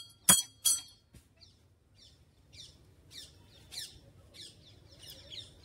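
A temple bell struck three times in quick succession in the first second, each strike ringing briefly. Then birds chirping over and over in short falling notes.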